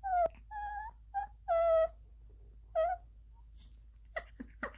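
Small dogs whining in play: about five short, high-pitched whimpering calls in the first three seconds, then a pause broken by a few faint clicks near the end.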